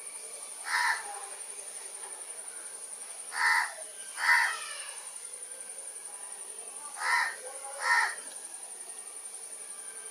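Five short, harsh bird calls, the last four in two pairs, over a steady high-pitched insect drone.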